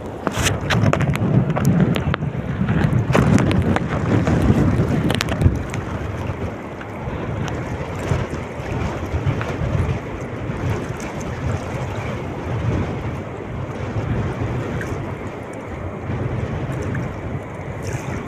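Wind buffeting the microphone on a boat at sea, over the wash of waves. The gusts are stronger for the first five seconds or so, with a few sharp knocks among them.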